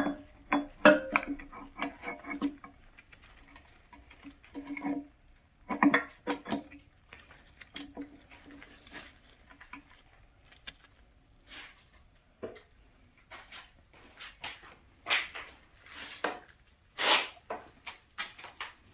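Steel fifth-wheel hitch parts clinking and knocking against each other as they are handled and fitted together during reassembly: irregular sharp metal knocks, a few with a brief ringing, the loudest cluster near the end.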